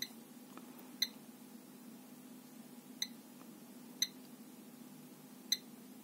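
Five short, high electronic beeps at uneven intervals, over a faint steady low hum.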